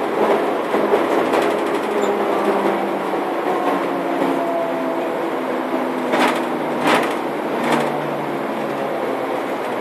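Škoda 14Tr trolleybus riding, heard from inside the passenger cabin: a steady running and road noise with faint motor whines that shift in pitch, and three sharp rattles from the body about six, seven and eight seconds in.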